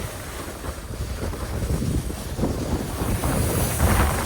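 Wind buffeting the microphone of a camera carried by a snowboarder riding downhill: a gusty low rumble with a brighter rushing hiss about three and a half seconds in.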